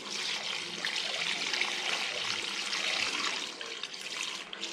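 Diesel fuel pouring from a jerrycan into a backhoe loader's fuel tank, a steady splashing trickle that eases briefly near the end.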